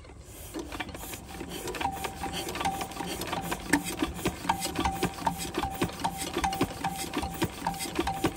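Single-cylinder stationary diesel water-pump engine being hand-cranked to start, turning over with a regular clacking beat of about two strokes a second, each stroke carrying a short ringing note.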